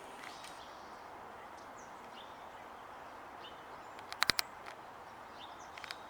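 Outdoor ambience with faint, scattered songbird chirps over a steady background hiss. A quick cluster of three or four sharp clicks sounds about four seconds in, with a few fainter clicks near the end.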